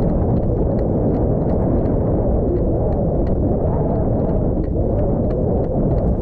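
Wind buffeting an action camera's microphone: a steady, loud low rumble, with scattered light clicks from footsteps and gear as the wearer walks.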